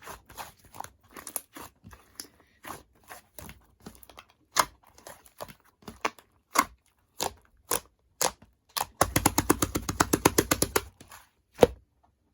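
Close-up eating of cake: crunchy chewing and mouth clicks, spaced out at first, then a dense run of crunching for about two seconds near the end.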